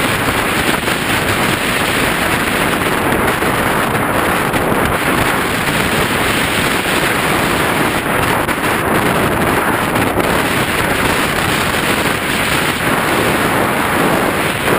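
Loud, steady rush of wind over the microphone of a camera riding on a radio-controlled plane in flight, with no clear propeller or motor tone standing out.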